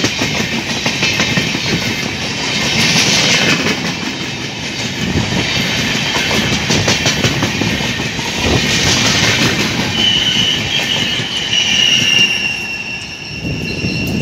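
Passenger express coaches rushing past at speed, their wheels clattering over the rail joints. From about two-thirds of the way in, a high steady whine rises over the rush, and the noise dips as the last coach goes by near the end.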